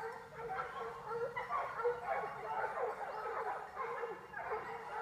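A pack of hunting hounds giving tongue together, many overlapping yelping and baying calls without a break: the cry of hounds working a trail.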